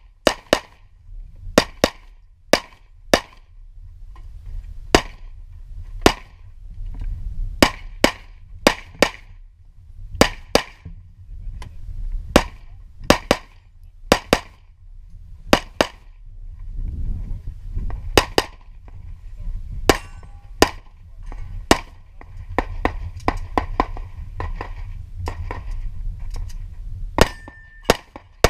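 Semi-automatic pistol shots fired in quick pairs and short strings, with pauses of a second or more as the shooter moves between positions. Near the end come metallic pings of steel targets being hit, over wind rumble on the microphone.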